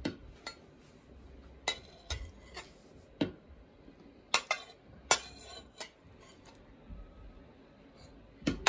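A large metal spoon clinking and scraping against a china plate as cubes of tofu are pushed off it, giving several sharp, irregularly spaced clinks.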